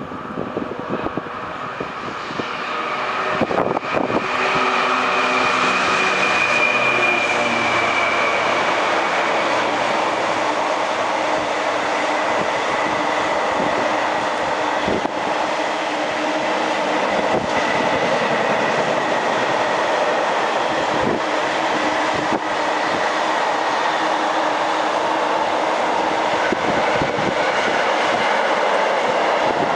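A train passing on the line close by. The sound builds over the first few seconds with a pitched whine from the leading vehicle, then holds as a long, steady rush of wheels on rails with scattered sharp clacks.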